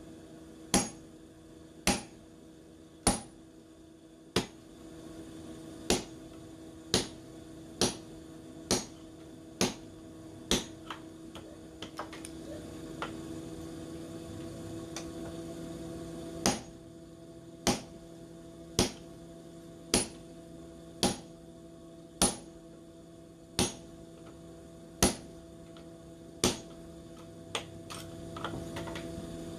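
Hand hammer blows on hot knife steel, about one a second with a bright metallic ring, pausing for several seconds midway and then resuming. A steady electric hum runs underneath.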